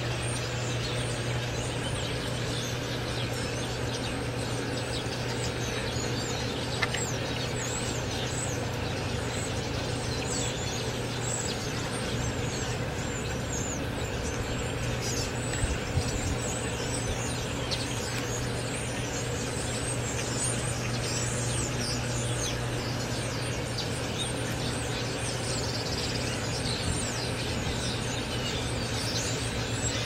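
A large flock of blackbirds calling together: many short, high, falling chirps and whistles overlapping without a break, over a steady low hum.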